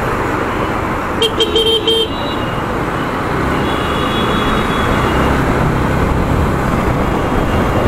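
Steady road, wind and engine noise from riding a motorcycle in slow city traffic. A vehicle horn honks about a second in, for under a second, and a fainter, higher horn sounds around the middle.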